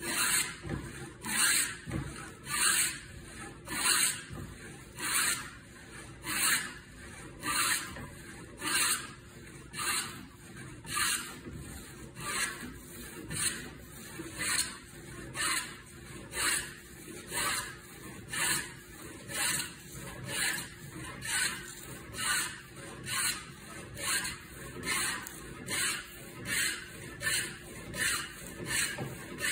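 Wooden hand plane with a fence cutting along the edge of a board, stroke after stroke, a rasping hiss as the iron takes a shaving on each push, in a steady rhythm of a little more than one stroke a second.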